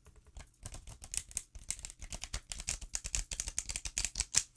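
Riffle shuffle of a new oracle card deck by hand: a fast, dense run of card edges flicking and clicking against each other, starting about half a second in and stopping just before the end. The cards are stiff with a sticky surface and take hand strength to riffle.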